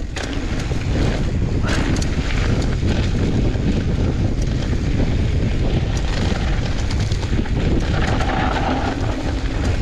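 Wind buffeting the microphone and mountain bike tyres rolling over a loose, dusty dirt singletrack, with the bike clicking and rattling now and then over bumps.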